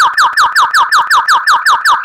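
White-rumped shama (murai batu) singing a fast 'tembakan' run: a rapid, even series of clear whistles, each sliding downward, about five a second.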